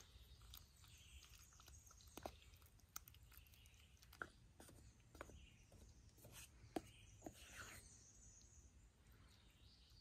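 Near silence: faint outdoor ambience with a few soft, scattered clicks.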